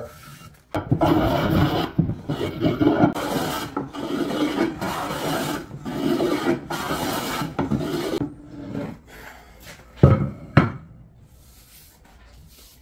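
Stanley Bailey No. 4 hand plane taking shavings off walnut staves in a run of rough scraping strokes, about one a second. Around ten seconds in, two sharp knocks.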